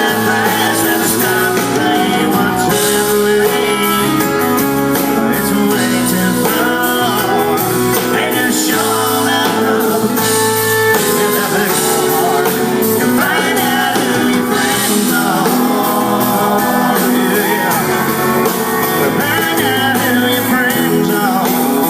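Live band playing a country-rock song, with electric guitar prominent over a steady beat.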